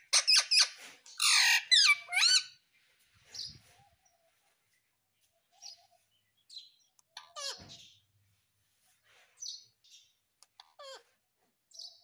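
Indian ringneck parakeet calling: a quick run of loud, pitch-sliding squawks and chirps in the first couple of seconds, then short scattered chirps every second or two.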